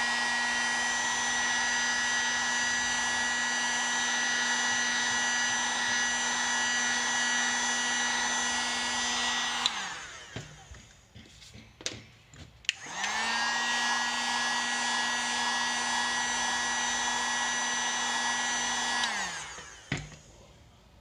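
Heat gun running with a steady motor hum and fan rush. About ten seconds in it stops and its pitch falls as it winds down. After a few clicks it starts up again about three seconds later, runs steadily, and winds down again near the end.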